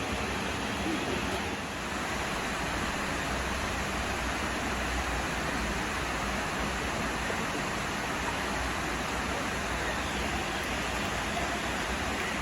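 Steady, even rush of flowing water from a small waterfall and stream.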